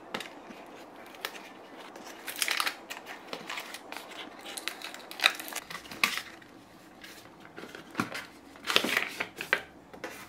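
Cardboard smartwatch box being opened by hand: its seal peeled, flap pulled open and inner box slid out of the sleeve, giving short bursts of paper rustling and scraping, the loudest about two and a half seconds in and about nine seconds in.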